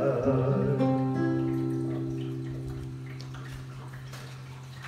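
Acoustic guitar closing out a hymn: a last chord struck about a second in rings on and slowly dies away.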